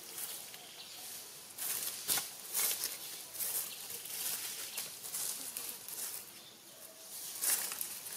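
Dry fallen leaves rustling and crackling in irregular short bursts as monkeys move and forage over the leaf litter.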